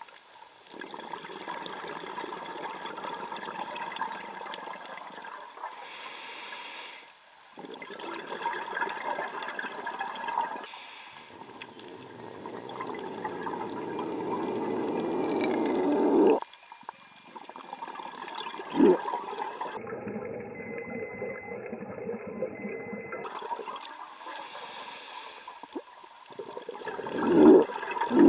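Underwater sound of a scuba diver breathing through a regulator: gurgling, rushing exhaled bubbles that swell and fade, in stretches that break off abruptly.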